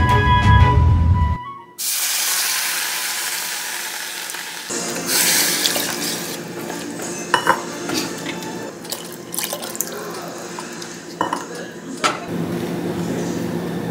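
Background music that cuts off after about a second, then kitchen sounds: a few seconds of steady rushing hiss, then tomato sauce being stirred in a stainless steel saucepan with a silicone spatula, with a few light clicks and knocks of the can and pot.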